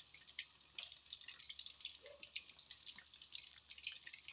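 Hot oil in a wok crackling and popping as a batch of chicken deep-fries: many small, irregular ticks, steady throughout.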